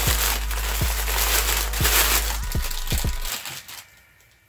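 Clear plastic packaging bag crinkling and crackling as it is pulled open by hand. It dies away a little after three seconds in.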